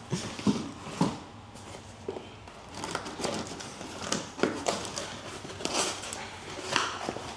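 Large cardboard shipping box being handled and its flaps pulled open: irregular rustling, scraping and knocks of cardboard.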